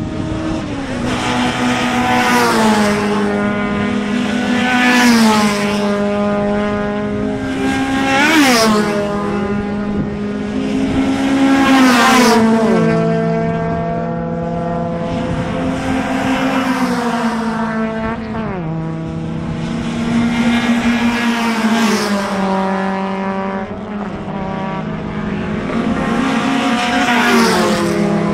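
Racing cars going past one after another at full throttle, about seven passes in all. Each engine note swells and swoops down in pitch as the car goes by, and several engines are heard at once, revving and shifting.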